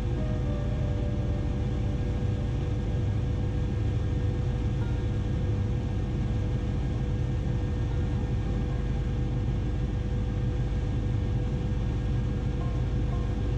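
Bell 407 helicopter in flight: steady rotor and turbine noise, a deep rumble with a steady whine above it.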